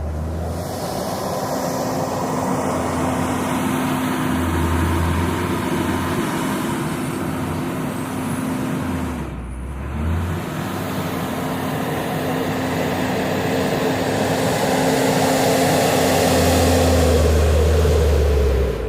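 JCB 426ZX wheel loader's diesel engine revving hard under load. It comes up to speed just after the start, eases off briefly about halfway through, then revs up again, loudest near the end.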